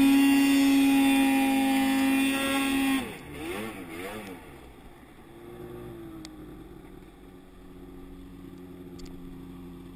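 Arctic Cat M8000 ProClimb snowmobile's two-stroke twin running loud and steady at high revs under throttle, then about three seconds in the throttle comes off: the note drops sharply, wavers up and down briefly, and settles to a quiet low idle as the sled slows.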